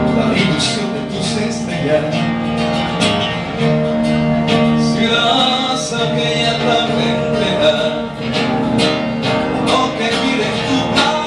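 Acoustic guitar strummed in a steady rhythm, accompanying a man singing into a microphone at times.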